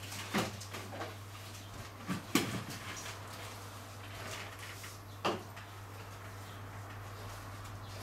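A few dull knocks and clunks from air conditioner installation work, one shortly after the start, a pair at about two seconds and one at about five seconds, over a steady low hum.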